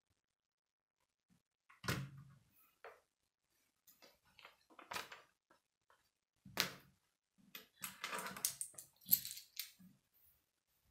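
Hard plastic Lego pieces clicking and knocking as a model is handled on a wooden table, the loudest a sharp knock with a dull thump about two seconds in. A busier run of small clicks and rattles comes near the end.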